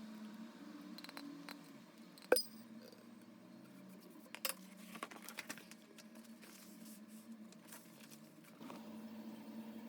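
Light handling noises over a steady low hum: a sharp click about two seconds in, another a couple of seconds later, and scattered lighter ticks and taps.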